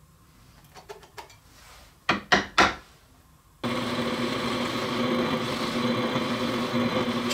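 Light clicks of a pencil and square on plywood, then three sharp knocks. About three and a half seconds in, a Rikon 30-212VS drill press starts sounding suddenly and runs steadily, boring a 5/8-inch through hole in plywood.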